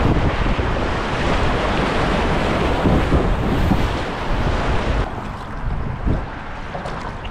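Rushing whitewater of a river rapid around a kayak, with wind buffeting the microphone. About five seconds in it drops to quieter flowing water with a couple of paddle splashes.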